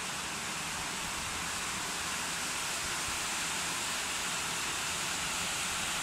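Khind BF12S slim box fan running, a steady, even rush of air.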